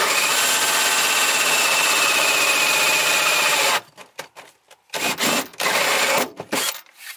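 Power drill turning a 35 mm hole saw through a plywood floor, running steadily with a motor whine and stopping abruptly just before four seconds in. A few short bursts follow near the end.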